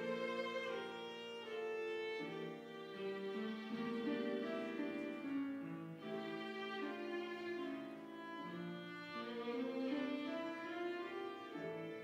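A violin playing a slow melody of held notes over piano accompaniment: the instrumental introduction to a choir anthem.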